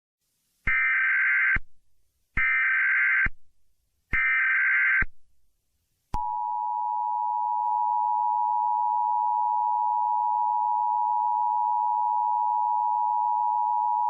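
Emergency Alert System tones: three short SAME header data bursts, each a little under a second, followed at about six seconds in by the steady EAS two-tone attention signal.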